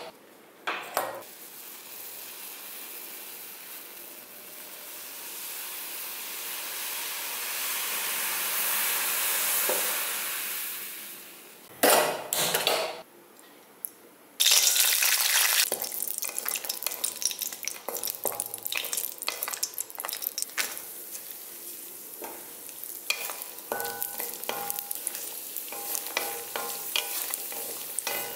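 A gas stove burner hissing steadily, swelling over several seconds. After a short pause, cashews and raisins sizzling as they fry in ghee in a kadai, with a wooden spatula scraping and clicking against the pan as they are stirred.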